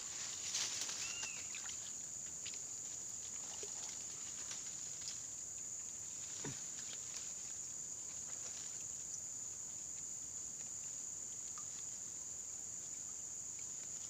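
Steady high-pitched insect chorus, with a few faint clicks and a short chirp about a second in.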